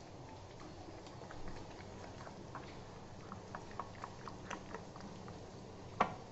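Silicone spatula stirring a thick yogurt-and-spice marinade in a bowl: soft wet squelches and many small clicks against the bowl, with one louder knock near the end.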